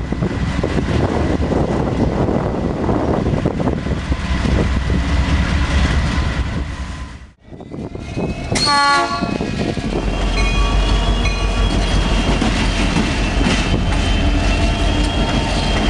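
Freight trains passing close by: the rumble and rail clatter of a passing train, then a Soo Line diesel locomotive gives a short horn blast about eight and a half seconds in and rolls past with its cars, with a few high ringing tones over the rumble.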